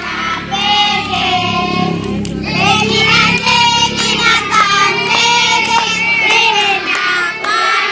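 A group of children singing together, their voices continuing steadily throughout.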